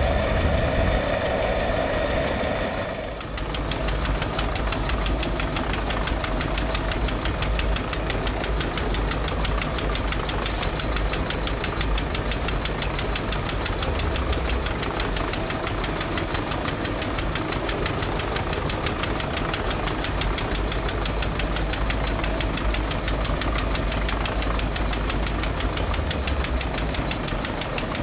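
Engine of a small asphalt (tar) mixing machine running steadily under load, with a fast, even knock. The sound changes abruptly about three seconds in.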